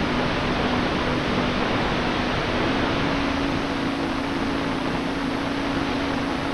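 Wind and airflow rushing over the onboard camera of an E-Flite Commander mPd electric RC plane in flight, with the steady hum of its electric motor and propeller underneath. The hum steps up slightly in pitch about two and a half seconds in.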